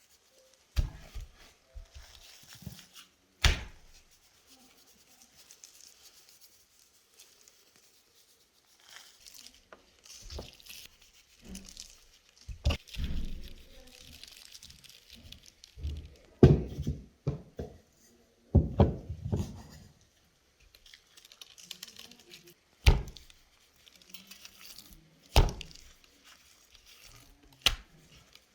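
Irregular dull thuds and sharp knocks, a dozen or so spread across the stretch, with rustling and crinkling between them, like handling and setting down things during food preparation.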